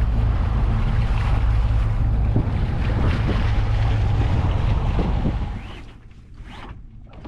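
Wind rumbling on the microphone and water rushing along the hull of a sailing catamaran under way. The sound gets much quieter about five and a half seconds in.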